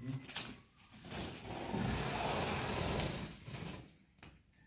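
Packing tape peeled off a cardboard box in one long tearing rasp of about two and a half seconds, after a few light knocks on the box.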